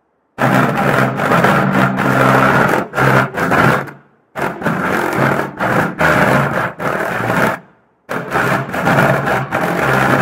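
Music played loud through a loudspeaker with a sheet of paint-covered paper lying on it. The paper buzzes against the vibrating speaker over steady low notes, and the vibration is what makes the paint move. It comes in three stretches with short breaks between.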